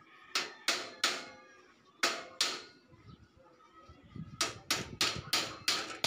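A hammer striking the steel frame of a sidecar, each blow ringing sharply: three in the first second, two more about two seconds in, then a quick run of about four blows a second through the second half.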